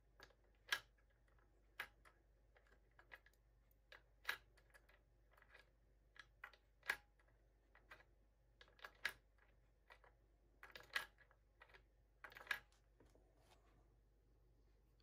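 Light, irregular clicks and taps of a router collet and collet nut handled and pressed into a 3D-printed plastic holder, about one or two a second, with near silence between.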